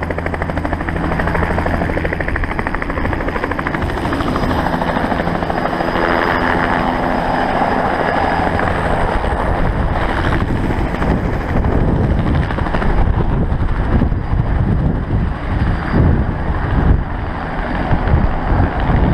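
Helicopter flying close by, its rotor beat steady at first, giving way in the second half to a rougher, fluctuating rumble.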